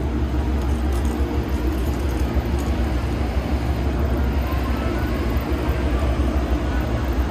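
Amtrak P42 diesel locomotives standing at idle: a steady low rumble with a constant hum.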